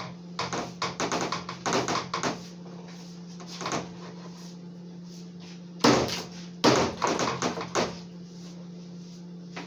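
A knife cutting up raw chicken on a cutting board: a quick run of knocks and taps, then two heavy chops about six seconds in, likely through the leg joint, followed by smaller taps. A steady low hum runs underneath.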